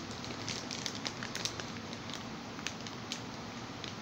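Clear plastic bag crinkling in the hands as a figure inside it is turned and held up: scattered sharp crackles, busiest in the first half and sparser after about two seconds, over a steady faint background hiss.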